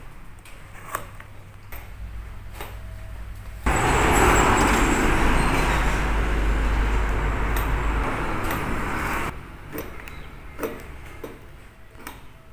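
Small hand blade ticking and scraping as it cuts grooves into a sneaker's rubber outsole. About four seconds in, a loud, steady rushing noise with a low rumble starts abruptly, lasts about five seconds and cuts off suddenly, drowning out the cutting.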